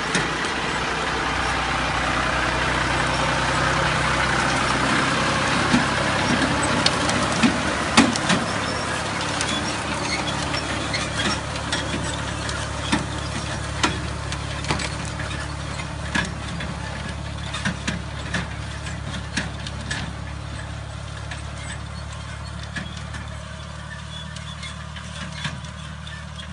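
Tractor engine running steadily as it pulls a direct seeder through stubble. It grows louder over the first few seconds, then slowly fades as it moves away, with irregular sharp clanks standing out from about six seconds in.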